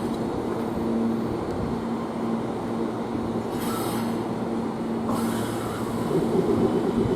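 Meitetsu 3500 series electric train standing and then starting off: a steady electrical hum, two short hisses of air near the middle, and from about six seconds in the louder sound of the VVVF inverter traction motors starting up. This set, 3521F, is known for an odd, echo-like inverter sound.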